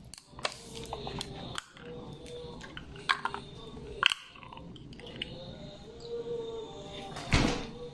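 A few light clicks and knocks, then a refrigerator door swinging shut with a thud near the end.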